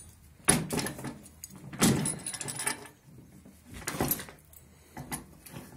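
Steel door and latch linkage of a homemade wood gasification boiler being shut and clamped: four sharp metal clanks and rattles, the loudest about two seconds in with a brief ring.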